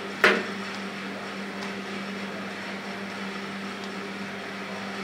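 Steady hum of running machinery with a low tone. A sharp metal click about a quarter second in, from the screwdriver being worked inside the expansion valve's orifice opening, followed by two faint ticks.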